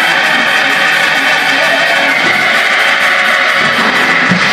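Live church band music: strummed guitar playing steadily with the band.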